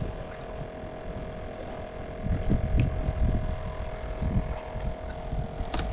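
Wind buffeting the microphone in uneven low rumbling gusts that pick up about two seconds in, over a faint steady hum, with a few light clicks.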